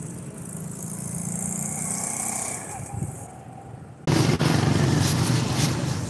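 Road traffic: a vehicle's engine hum and tyre hiss swell and fade as it passes. About four seconds in the sound cuts abruptly to louder, denser traffic rumble.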